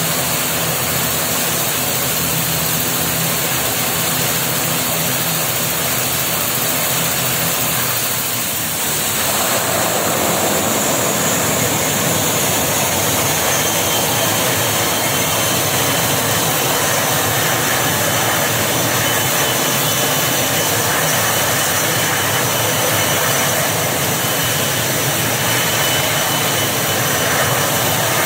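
ATR 72 twin-turboprop engines running close by, a loud steady engine and propeller noise. About nine seconds in it dips briefly, then carries on slightly louder with a faint high whistle.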